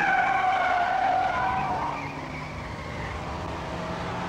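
Car tyres squealing as the car pulls away hard: one long squeal that starts suddenly, sags slightly in pitch and fades over about three seconds, with the engine running under it.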